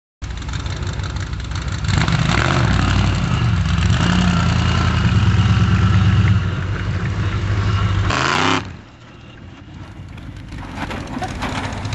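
Lifted pickup truck's engine revving hard, its pitch rising and falling, for about eight seconds; then it drops away suddenly to a quieter engine running that builds up again near the end.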